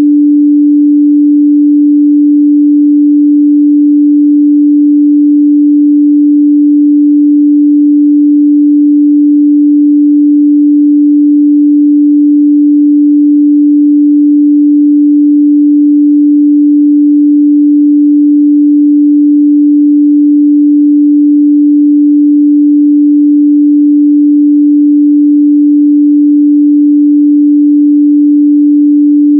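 A steady, loud 293 Hz sine-wave test tone, one pure unchanging mid-range pitch, used to check speaker and headphone response.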